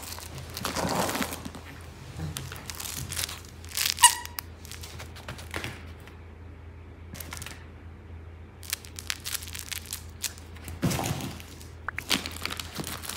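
A Maltese dog playing with plush toys on a padded mat and dog bed: scattered rustling and crinkling with light knocks, and one short high squeak about four seconds in.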